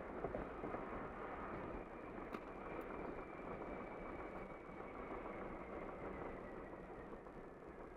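Car driving on the highway, heard from inside the cabin: steady road and tyre noise with engine hum, and a faint whine that slowly falls in pitch as the car slows.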